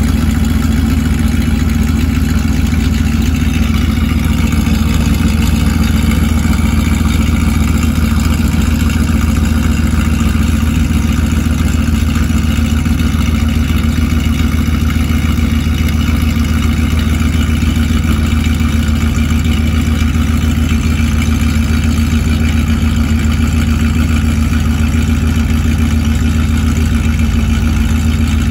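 A 1998 Jeep Grand Cherokee's 5.9 L (360 Magnum) V8 idling steadily and loud through an open exhaust cutout, warming up after a cold start.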